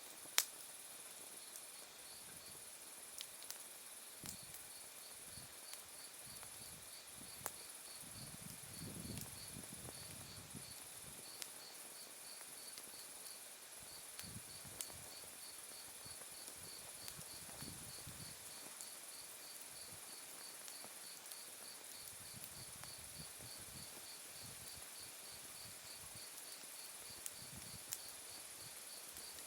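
Autumn night insects singing: a steady, very high trill with a separate chirp pulsing about three times a second. A wood fire of glowing embers gives a few sharp crackling pops, the loudest just after the start.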